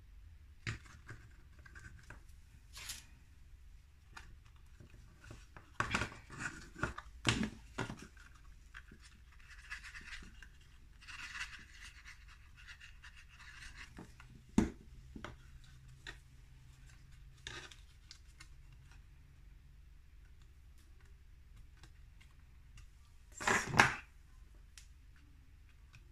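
Cardstock being handled and pressed together, with small plastic clothespin clips set on the glued corners of a paper box lid. Scattered soft paper rustles and light clicks, a sharp click just past halfway and a louder rustle near the end.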